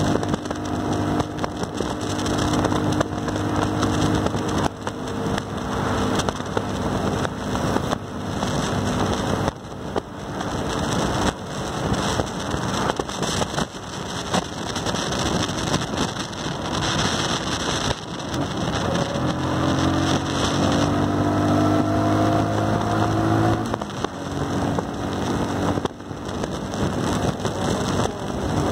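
Motorcycle engine running at road speed under a steady rush of wind on the microphone. About twenty seconds in, the engine note climbs steadily for a few seconds as it accelerates, then drops away.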